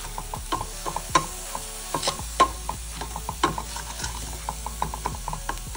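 Wooden spatula stirring and scraping a paneer and onion filling around a stainless steel pan. Repeated scrapes and taps come several times a second, each with a brief metallic ring from the pan.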